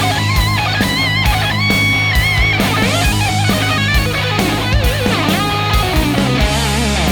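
Background music: a rock track with lead electric guitar playing bending, vibrato notes over bass and drums.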